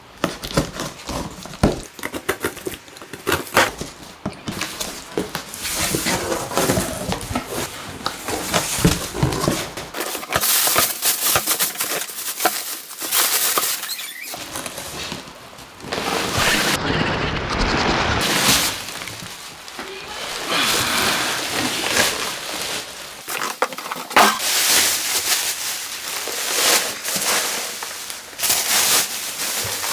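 Unboxing handling noise: a box cutter slitting packing tape and cardboard flaps scraping and rustling, then bubble wrap crinkling and crackling as it is pulled off a large subwoofer. The sound is made of irregular clicks and rustles.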